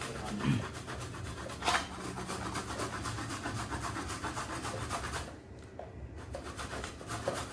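Coconut flesh being rasped against a handheld metal grater by hand, a fast run of scraping strokes with a brief pause about five seconds in.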